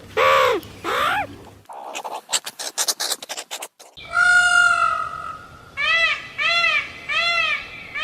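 Animal calls from several short clips spliced together. First come a few arched pitched calls, then about two seconds of rapid dry clicks, then one long pitched call. Near the end there is a run of short arched calls, about two a second.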